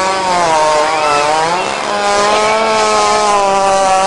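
Hippopotamus making one long, unbroken call that sounds like a running chainsaw, its pitch wavering slightly.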